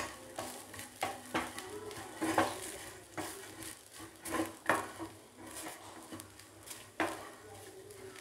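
A spoon stirring and scraping roasted grated coconut, shallots and whole spices around a metal frying pan, mixing in chilli and coriander powder, with irregular scrapes and knocks against the pan.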